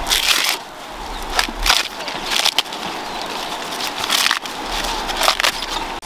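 Fresh green corn husks being torn and peeled off the ears by hand: a series of brief ripping, rustling tears.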